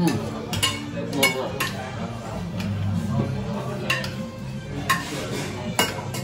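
Spoons clinking and scraping against large plates of curry and rice as several people eat fast, with sharp clinks every second or so.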